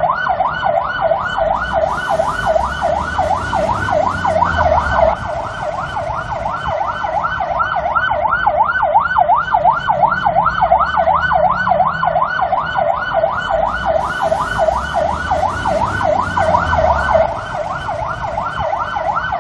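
Irish Garda police car siren in yelp mode: a fast, steady rising-and-falling wail, about four sweeps a second, over a low vehicle rumble.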